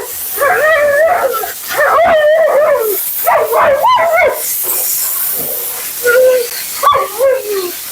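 Siberian husky "talking": a run of wavering, howl-like woo-woo calls, four or five phrases with short gaps between them, the middle ones the longest.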